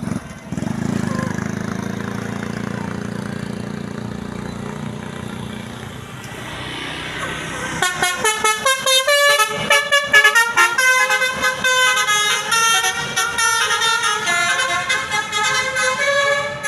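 A tour bus's engine runs low and steady. About eight seconds in, its Basuri multi-tone 'telolet' horn starts playing a fast melody of short stepped notes.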